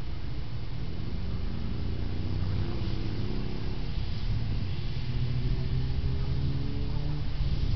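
An engine running out of sight, its note rising slowly over a steady low rumble.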